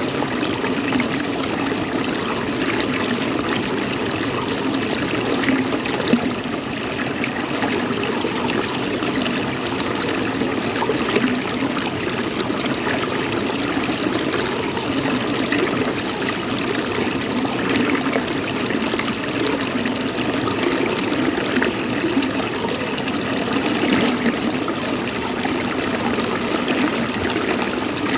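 Steady running water, trickling without a break.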